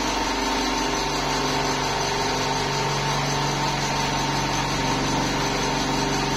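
Buffalo V5S automatic cigarette filling machine running: a steady mechanical hum with a few constant tones and a hiss over it.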